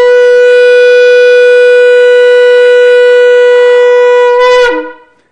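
Shofar blown in one long, steady, loud blast. Near the end the pitch breaks downward and the blast stops.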